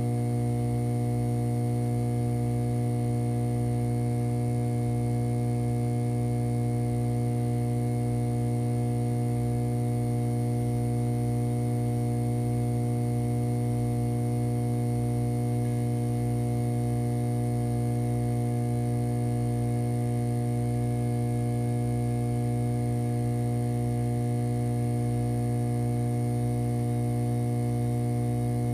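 Steady electrical hum: a strong low drone with several higher tones held over it, unchanging.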